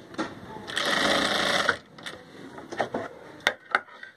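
Sewing machine stitching a short seam in cloth, a run of about a second, then stopping. A few sharp clicks follow near the end as tailor's scissors are handled at the fabric.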